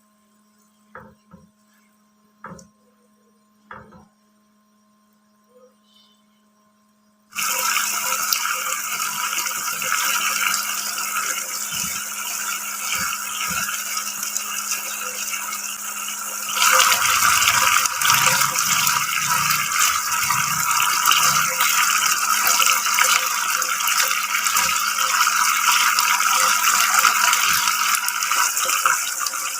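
Filled doughnuts deep-frying in hot oil: after a few light knocks, a steady sizzle starts suddenly about seven seconds in and grows louder about 17 seconds in.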